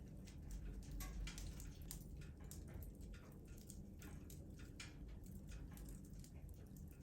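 Wood fire crackling in a fireplace: faint, irregular pops and snaps over a low rumble.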